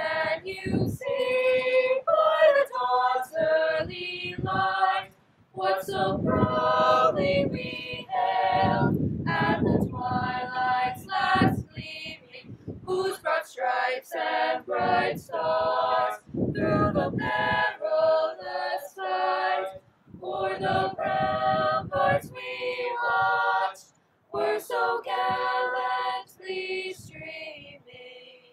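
A choir singing, in phrases broken by short pauses.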